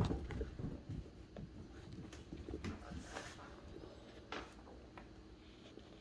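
Cats' paws thumping and pattering on a hardwood floor as they scamper and pounce. A few heavy thumps come at the start, then scattered lighter taps, with one sharp click about four and a half seconds in.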